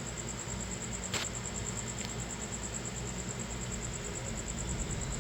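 Crickets chirping in a steady high-pitched trill, with a sharp click about a second in and a fainter one shortly after.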